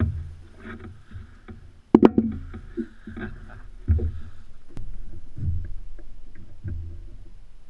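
Knocks and thumps on a boat, with low rumbling handling noise; a sharp knock about two seconds in is the loudest.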